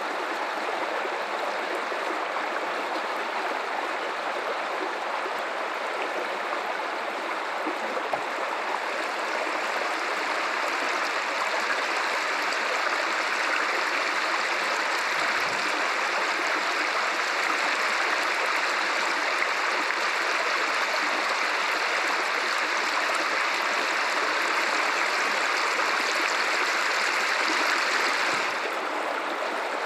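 Guadalupe River water running over rocks, a steady rushing flow. It grows slightly louder about ten seconds in and drops back abruptly near the end.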